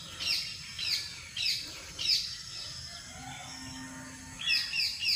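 A bird calling in a series of short, high, falling chirps, a little under two a second, then a pause of about two seconds and a quicker run of chirps near the end.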